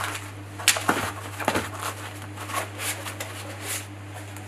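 Foam packing blocks and a cardboard box being handled: rubbing and rustling as a CPU cooler packed in foam is pulled out of the box. There are a few sharp scrapes in the first couple of seconds, then softer rustling.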